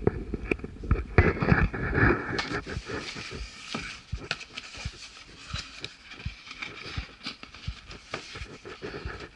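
Cardboard box being handled and turned over by hand on a laminate floor: rubbing and scraping of the cardboard with many small knocks and taps.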